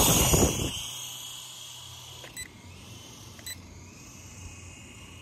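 Toy RC helicopter climbing away: rotor downwash rushes loudly over the microphone at first, then fades over a second or so to the faint high whine of its electric motors and rotor. Two light ticks come later.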